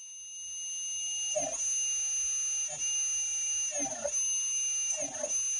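AFMAT rechargeable electric eraser's small motor whining at a high, steady pitch, growing louder over the first second. Four times, the spinning eraser tip is pressed to the airbrushed board and drawn through the paint, and each stroke brings a short rubbing sound and a brief dip in the motor's pitch under the load.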